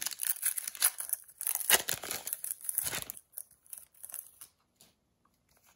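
Foil wrapper of a Sorcery: Contested Realm Beta booster pack crinkling and tearing as it is pulled open. The crinkling dies down after about three seconds.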